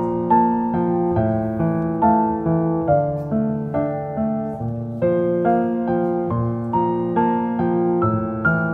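Background piano music: a melody of single notes struck at an even, unhurried pace over held lower notes.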